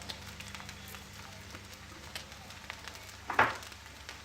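Rice frying in a hot pan, a faint sizzle with scattered small crackles over a steady low hum, and one brief louder sound about three and a half seconds in.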